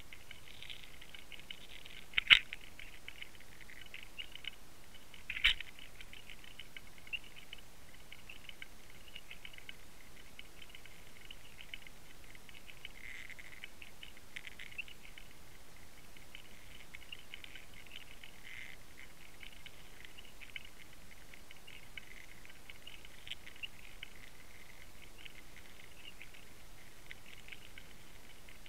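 Underwater camera towed on a trolling line picking up a steady fine crackle of ticks through its housing, with two sharp clicks a few seconds apart early on and a fainter one just after.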